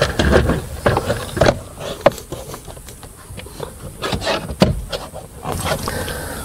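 Hands working a plastic under-dash trim panel and a video cable: scattered sharp clicks and knocks with light rustling, the loudest knocks about two seconds in and again near five seconds.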